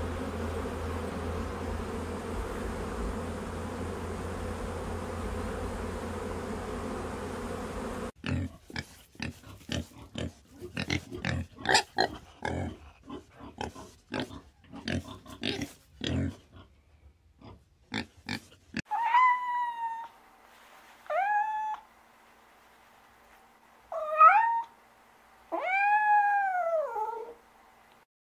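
A steady buzzing hum for about eight seconds, then a run of short, irregular animal noises. Near the end come four short pitched animal calls, each rising and falling in pitch.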